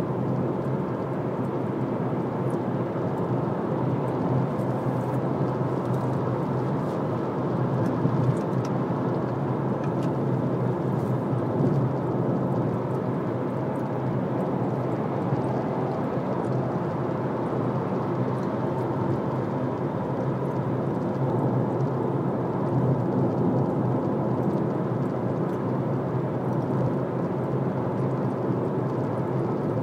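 Car cruising at motorway speed: steady tyre and road noise with a low engine hum.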